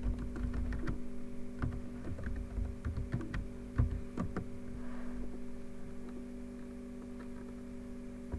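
Keys tapped on a computer keyboard: a quick run of clicks over the first four seconds or so, then they stop, leaving a steady hum in the background.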